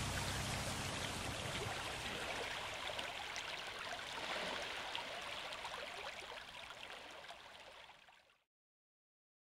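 Shallow stream running and rippling over pebbles, a steady wash of water that slowly fades and cuts off about eight seconds in.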